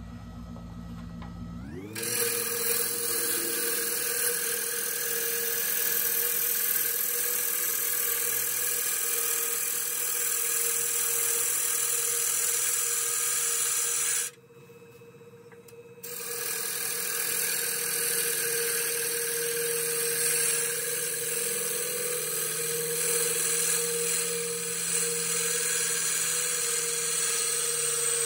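A wood lathe spins up about two seconds in, its motor whine rising in pitch. Then a bowl gouge cuts into the spinning ash blank with a steady, loud hiss of shavings over the whine. The cutting stops for a second or two around the middle, then carries on.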